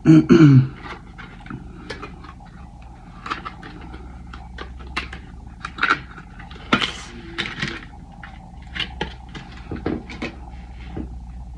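Packaging of a new Glock trigger part being opened by hand: scattered small clicks, crinkles and rustles. A short pitched vocal sound comes at the very start, over a steady background hum.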